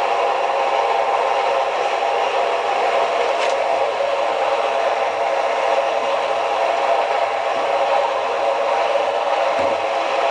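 VSN R-20 drill press running steadily after a belt change to a new spindle speed: electric motor and belt-driven spindle humming evenly, with one faint click about three and a half seconds in.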